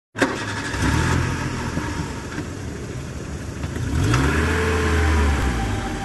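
Car engine running and revving, the engine note rising and falling about four seconds in.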